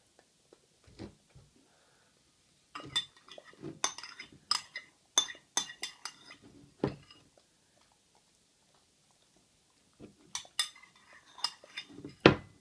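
Metal spoon clinking and scraping against a ceramic bowl: a bout of quick clinks about three seconds in, then another from about ten seconds, with the loudest knock near the end.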